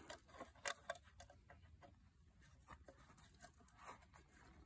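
Near silence broken by a few faint, short clicks and scrapes: a two-pin plug being pushed into a power inverter's AC outlet and handled there.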